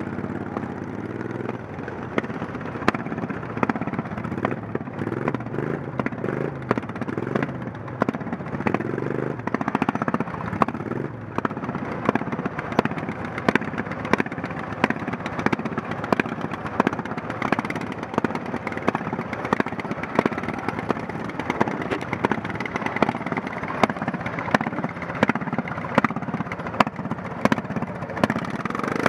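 Racing lawn mower's small engine running hard through laps on a dirt track, heard close up from the driver's seat, with other racing mowers running alongside. Frequent sharp clicks and knocks throughout.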